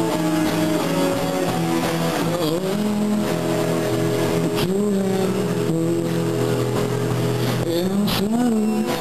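A live band playing an instrumental passage: electric guitar holding long notes that bend up and down in pitch over bass and drums, with a couple of cymbal crashes.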